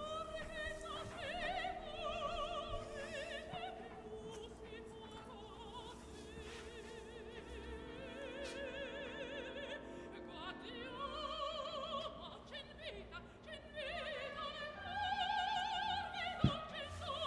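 Operatic singing with strong vibrato over orchestral accompaniment, fairly quiet, with long held notes.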